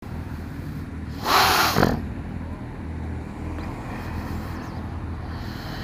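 Motorcycle engine idling steadily at a standstill, with a loud, sharp sniff through the rider's helmet about a second in, from a nose running with hay fever.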